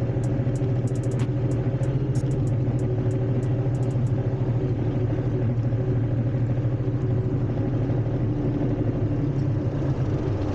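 An engine or motor running steadily at constant speed, with a low hum, and light clicking during the first few seconds.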